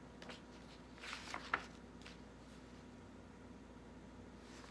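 Pages of a picture book being handled and turned, a short paper rustle about a second in ending in a sharp tap, over quiet room tone with a faint steady hum.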